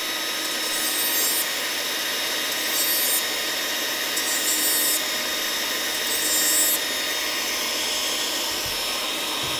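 Foredom flexible-shaft rotary tool running with a steady whine while its small abrasive wheel grinds the tooth edges of a steel Muncie transmission gear in four short rasping passes, deburring dings and high spots off the teeth.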